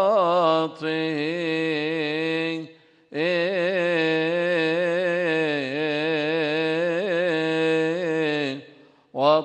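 A man chanting solo in a Coptic liturgical melody, stretching the Arabic word 'بصلواته' ('by his prayers') into long melismatic held notes with a wavering pitch. The chant breaks briefly about three seconds in and pauses near the end.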